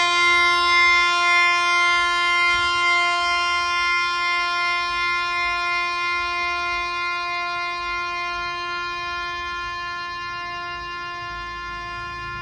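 A single note held on a two-reed Ratilal Jivanlal Samrat box harmonium, sounding steadily with a slight waver and slowly fading as the bellows air runs down: a test of how long the harmonium sustains a note.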